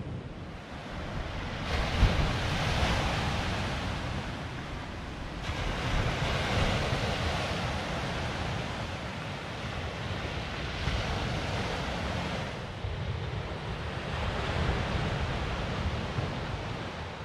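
Sea waves washing onto the shore, swelling and easing every few seconds, with wind rumbling on the microphone. A brief thump about two seconds in.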